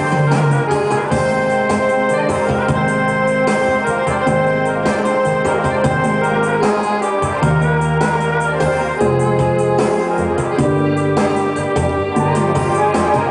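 Yamaha PSR-A1000 arranger keyboard played live: a melody with sustained organ-like chords over moving bass notes and a steady beat.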